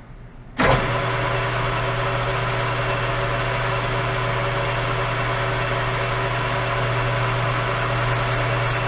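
Metal lathe's spindle switched on about half a second in, then running steadily at about 520 RPM: a loud, even hum with several steady tones.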